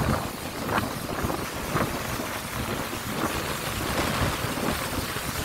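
Strong wind buffeting the microphone: an uneven low rumble under a steady rushing hiss.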